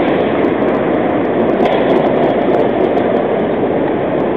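San Francisco cable car rolling away along its rails, a loud, steady noise of the car and its track.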